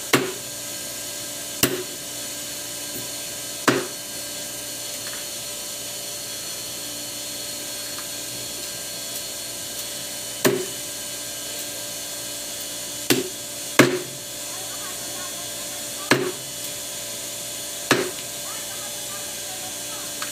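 Machete chopping grilled chicken on a wooden stump chopping block: about nine sharp chops, a second to several seconds apart, over steady background noise.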